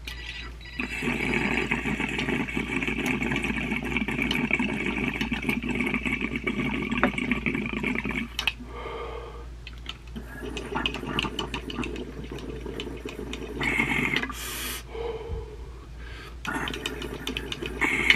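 Water bubbling through a small glass dab rig as a dab is inhaled through it: one long pull of about seven seconds, then further pulls broken by short breaths out.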